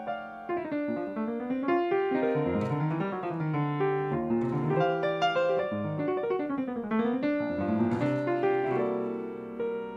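Background piano music, with runs of notes rising and falling over sustained chords.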